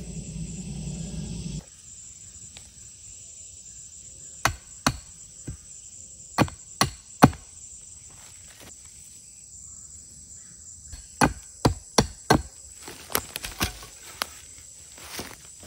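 Hatchet blows on wood: two runs of sharp chops, about two a second, the first starting about four seconds in and the second about eleven seconds in.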